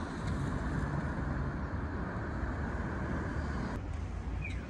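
Steady city traffic rumble, strongest in the low range. The background changes abruptly a little under four seconds in.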